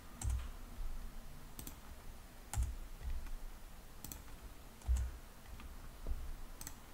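Separate clicks of a computer mouse and keyboard keys, roughly one a second, some with a soft low thump.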